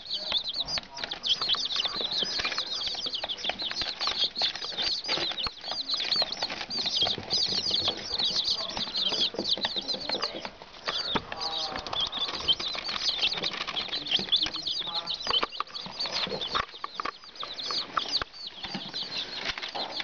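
A crowd of young chicks peeping nonstop: many short, high-pitched peeps overlapping, several every second.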